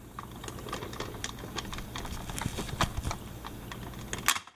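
Light plastic clicks and rattles from a Buzz Lightyear action figure being handled as its wings are worked, irregular and several a second over a low hum, cutting off abruptly near the end.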